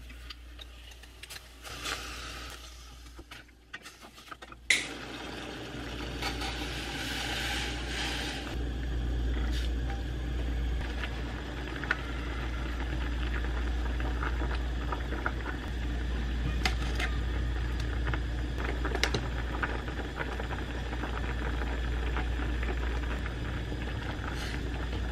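Kimchi stew cooking in a stainless steel pot on a gas burner: sizzling and bubbling, with a wooden spoon stirring and knocking lightly against the pot now and then, over a steady low hum.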